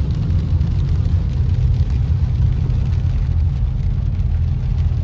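Car driving on a wet road, heard from inside the cabin: a steady low rumble of engine and tyres with a light hiss over it.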